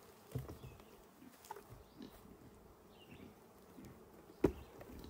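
Honeybees buzzing around the hive as the last bees are shaken out of the nucleus box, agitated at being dumped. A few soft knocks, and one sharp knock about four and a half seconds in.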